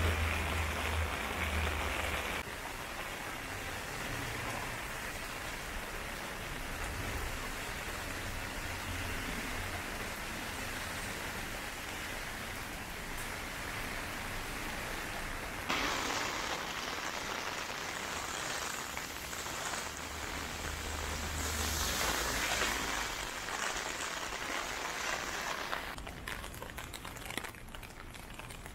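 Heavy rain falling on wet pavement, a steady hiss that grows brighter or duller abruptly a few times.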